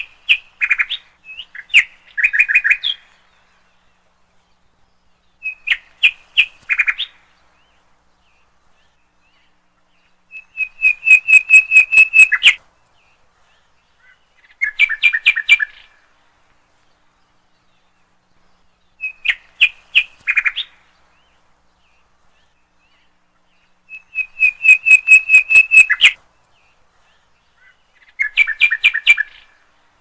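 A bird singing in short phrases of quick repeated chirping notes, each phrase lasting one to two seconds, with pauses of a few seconds between them.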